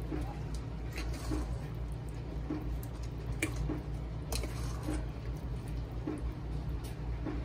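Metal ladle stirring and mashing wet tomato choka in a stainless steel bowl: a wet squishing, with short knocks and scrapes of the ladle against the bowl about once a second.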